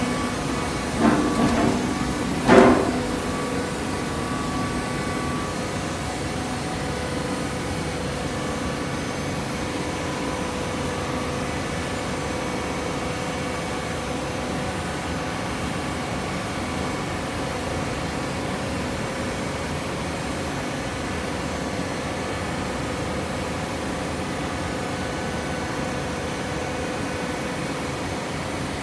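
Hydraulic horizontal baler for coconut fibre running: a steady machine hum with several held tones from its motor and pump, with a few metal knocks in the first three seconds, the loudest about two and a half seconds in.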